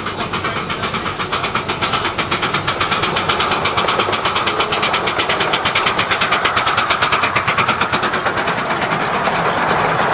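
Miniature live-steam locomotive chuffing close by as it hauls a passenger train, a fast even beat of about six chuffs a second. After about eight seconds the chuffing fades into the steady rumble of the riding cars' wheels on the rails.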